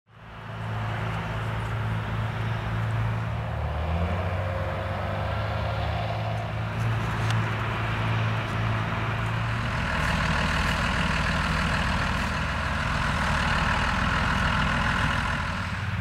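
John Deere 8210T tracked tractor's 8.1-litre six-cylinder diesel running steadily under heavy load, pulling a plough through soft, waterlogged ground. The sound fades in at the start, and the engine note shifts about ten seconds in.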